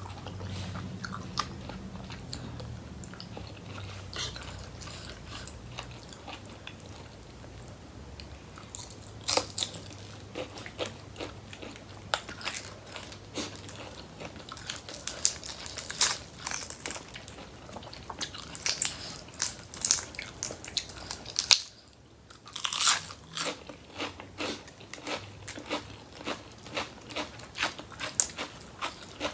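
Close-up chewing and crunching of crisp raw vegetables with a spicy seafood and rice-noodle salad, with irregular sharp crunches throughout.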